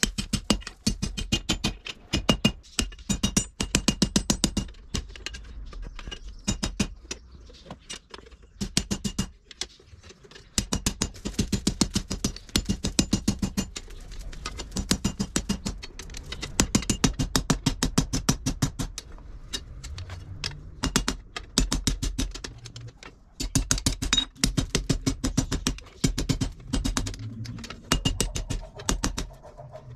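Hand hammer striking red-hot car spring steel on an anvil in quick, rhythmic blows, several a second, each with a short metallic ring, with a couple of brief pauses.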